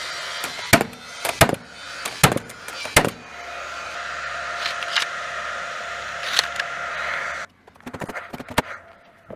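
Paslode cordless framing nailer driving nails through a collar tie into a rafter: four sharp shots in the first three seconds, about one every 0.75 s. A steady hum follows for a few seconds, and fainter shots come near the end.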